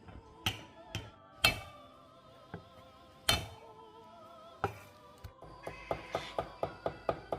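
Knife chopping on a cutting board: a few separate sharp chops, then from about five seconds in a quick, even run of about five chops a second. Background music plays underneath.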